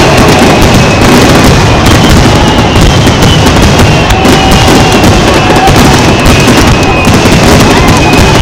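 Barrage of aerial firework shells bursting in quick succession, the booms and crackle overlapping into one loud, unbroken din.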